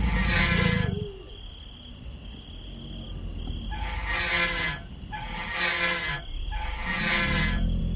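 Reconstructed pterodactyl call: shrill, metallic screeches. One fades out about a second in, then three more follow at short intervals from about four seconds in, some over a low rumble.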